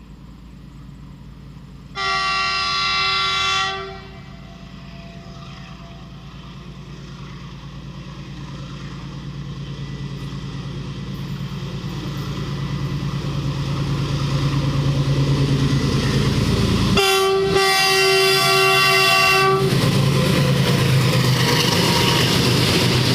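WDG-4G diesel locomotive at the head of a loaded freight train, sounding its multi-tone horn for about two seconds, then running ever louder as it approaches. A second horn blast of nearly three seconds comes about three-quarters of the way through, followed by the clatter of the wagons rolling past.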